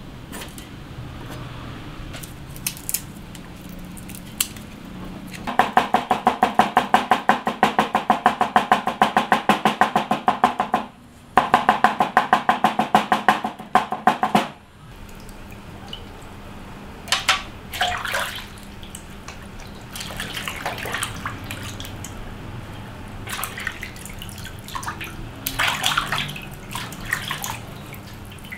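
Cleaver rapidly mincing on a wooden chopping board, about seven strokes a second for some nine seconds with a brief pause midway. It is followed by scattered lighter knocks and water splashes.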